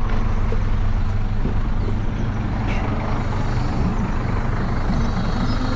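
A bus engine running steadily with a low, even hum.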